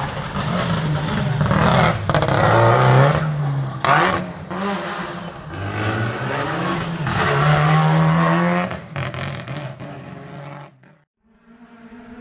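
Rally car engine revving hard as it accelerates along the stage, its pitch climbing, dropping at a gear change and climbing again, with several sharp cracks along the way. The sound cuts off abruptly near the end.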